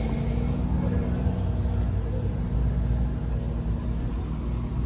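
Car engine running steadily nearby: a low, even rumble with a steady hum.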